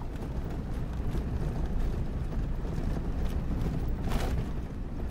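Inside a vehicle's cabin on a gravel dirt road: a steady low rumble of tyres and engine. About four seconds in there is a brief rattle of the keys.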